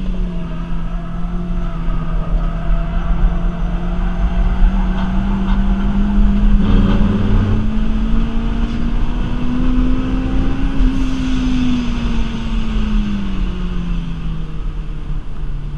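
Rotrex-supercharged 2ZZ four-cylinder engine of a Toyota Celica, heard from inside the cabin, running hard on track. Its note climbs slowly through most of the stretch, then falls away near the end.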